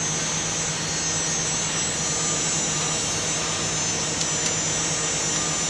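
Hydraulic power unit of a closed-door baler running steadily, with a constant low hum and a high whine. Two faint ticks come about four seconds in.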